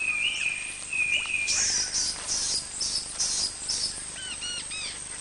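Rainforest birds calling. A clear whistled note is held for about a second and a half, followed by a run of short high chirps at about three a second, and near the end a few quick arched calls.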